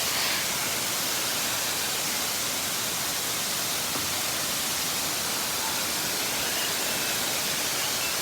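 Large waterfall, its falling water making a steady, unbroken rush of noise.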